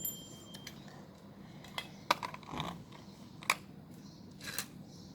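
Small items being taken out of a home-made toy car: a few scattered clicks and knocks of handling. A small bell's ring dies away within the first second.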